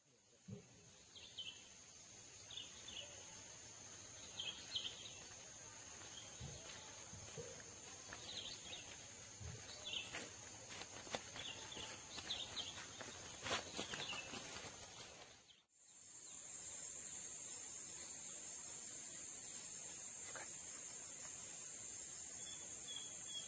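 Faint, steady high-pitched insect drone, with scattered short bird chirps and a few light footsteps or rustles over the first two-thirds. After that only the insect drone goes on.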